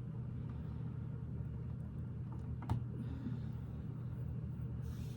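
Steady low background hum, with a single sharp click a little past halfway and a couple of faint ticks around it: Lego bricks being pressed into place.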